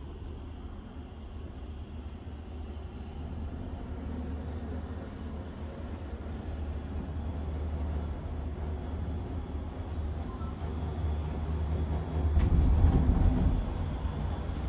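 Steady low rumble of a moving vehicle heard from inside it, growing gradually louder and swelling to its loudest about twelve seconds in.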